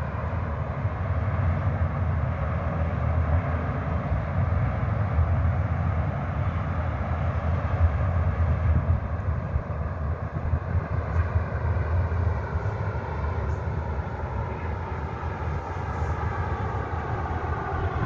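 Wind buffeting the phone's microphone: a continuous, gusting low rumble with a steady rushing hiss over it.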